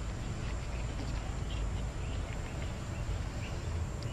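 Rubber spark plug wires and their boots being handled and sorted at an ignition coil pack, giving a few faint light clicks and rustles over a steady low background rumble.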